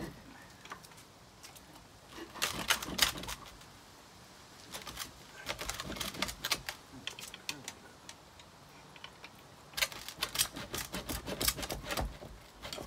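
Ratchet wrench clicking in quick runs as a 5/8 socket on a long extension turns out the mounting bolts of a Volvo Penta SX sterndrive. Three bursts of rapid clicks come a few seconds apart.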